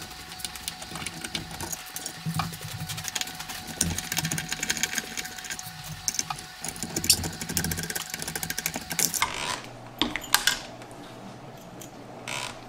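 Rapid metallic clicking and rattling as the screws holding an old Zalman copper-fin CPU cooler to the motherboard are worked loose with a screwdriver. The clicking stops about nine seconds in, followed by a few sharp knocks as the cooler is handled and lifted off.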